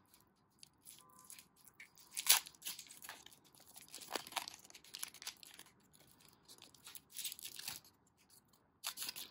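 Foil Pokémon booster pack wrapper being torn open and crinkled by hand: a run of crackling rustles, the loudest tear about two seconds in.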